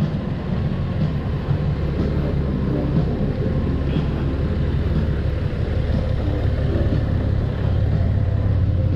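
2020 Honda Gold Wing Tour DCT's flat-six engine running steadily, getting a little louder near the end.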